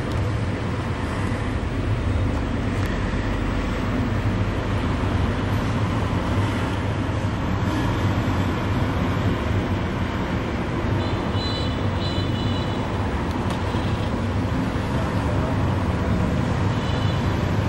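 Steady road traffic noise, a continuous low rumble of passing vehicles. Faint, brief high-pitched tones come through about eleven seconds in and again near the end.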